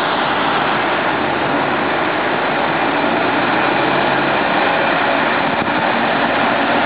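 Diesel engine of a SEPTA New Flyer low-floor transit bus running as the bus turns through the intersection and comes alongside, over steady traffic noise.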